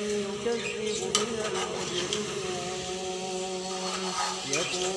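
A steel spatula scraping and clinking against a steel kadai as chicken pieces in a wet masala are stirred, with a few sharp clinks. Under it runs a slow Quranic recitation with long held notes.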